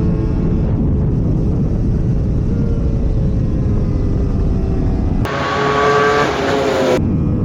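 Honda CBR1000RR-R race bike's inline-four engine at high revs on track, under heavy wind rush. The pitch sags slowly and steps up once. About five seconds in, a clearer engine sound with falling pitch starts and stops abruptly, under two seconds long.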